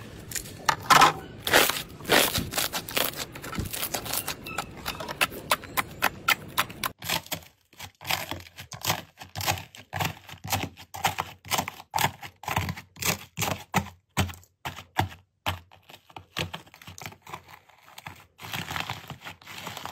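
Thick slime being stretched and worked by hand, with irregular popping and clicking; then, after a cut about 7 seconds in, a dried, crusted sheet of slime broken and crumbled by fingers: crisp crunches and crackles, a few a second.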